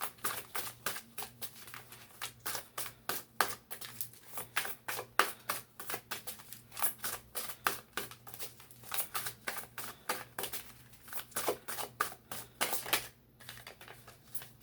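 A deck of tarot cards being shuffled by hand: a fast, uneven run of papery flicks and taps that stops about a second before the end.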